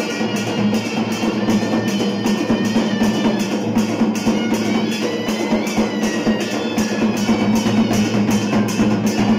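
Live Lewa drumming: a shoulder-slung dhol beaten with sticks, a barrel drum played by hand and a steel plate struck with a stick, keeping a steady rhythm of about three to four beats a second.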